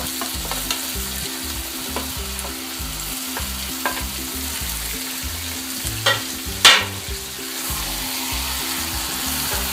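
Raw turkey pieces sizzling as they go into a hot pan of fried masala, then being stirred with a wooden spatula. A few sharp clicks of the bowl and spatula against the pan; the loudest comes about two-thirds of the way through.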